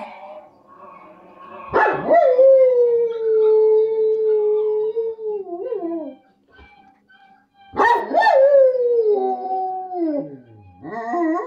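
Komondor howling in three long drawn-out howls, each falling in pitch at its end. The first starts about two seconds in and lasts about four seconds; the others come near the end.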